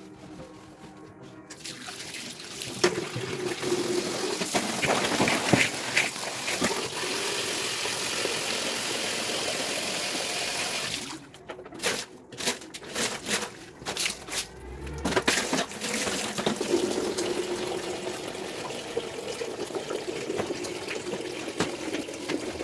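Water running from a tap and splashing, broken into a string of short bursts about halfway through, then running steadily again.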